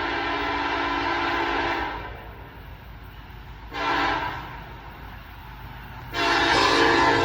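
Locomotive air horn on Norfolk Southern 1020 sounding a long blast that stops about two seconds in, a short blast around four seconds in, and another long blast that starts about six seconds in, over the low rumble of the passing train.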